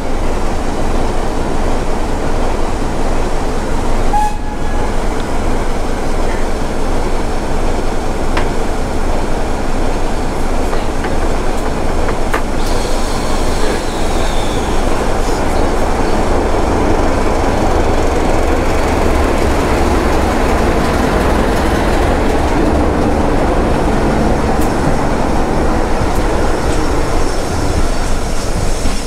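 A heritage train passing close by on the next track, a diesel locomotive followed by a steam locomotive, with the steady rumble of wheels on the rails and a few light clicks.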